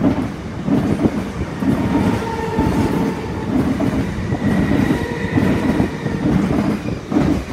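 Electric passenger train passing close by at speed, its wheels beating out a steady rhythm over the rails about every 0.8 seconds, with a faint high whine above the rumble.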